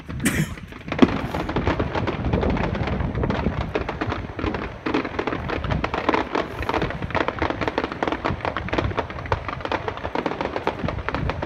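Fireworks crackling: a dense, continuous run of rapid small pops, with a sharper bang about a second in.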